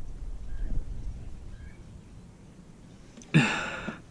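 A man's short, loud exhale or sigh about three seconds in, over faint low rumbling handling noise.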